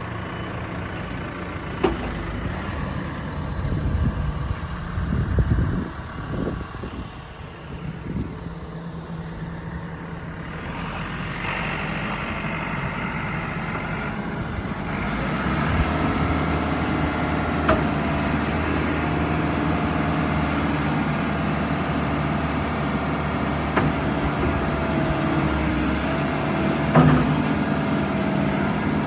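JCB 3CX backhoe loader's diesel engine running. The engine sound surges unevenly at first, then rises and settles at a louder, steadier level from about halfway on. A few sharp knocks come from the machine, the loudest near the end.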